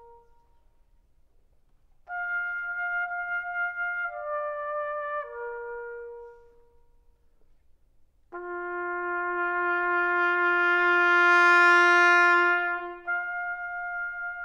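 A short melodic phrase of single notes steps downward, and after a pause a solo trumpet holds one long low note that swells to a loud, bright peak and then fades. A higher sustained note enters near the end.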